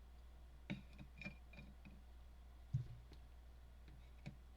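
Faint, scattered clicks and taps from trading cards being handled and shuffled, with one duller knock near the middle.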